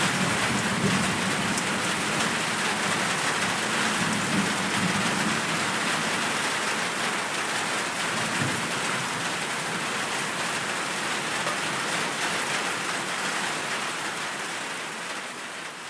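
Heavy rain falling steadily, a dense even hiss, with a low rumble of thunder dying away in the first few seconds. The rain sound fades out near the end.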